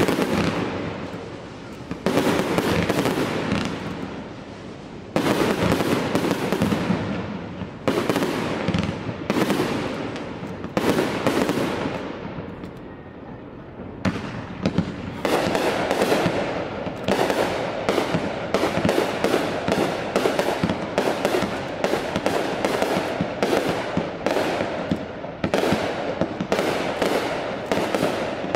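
Aerial firework shells bursting in a display. There are sharp reports a few seconds apart, each with a crackling, fading tail, and from about halfway a rapid barrage of reports, about two a second.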